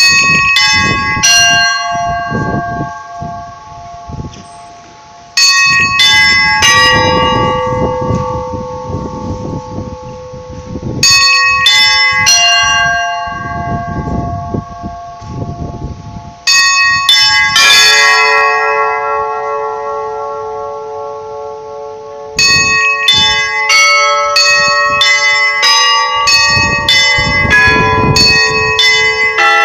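Russian Orthodox church bells ringing a zvon. Clusters of quick strikes on several higher bells come roughly every five seconds, and each group is left to ring out. A deeper bell joins in some groups. From about three-quarters of the way in, the strikes come fast and without pause.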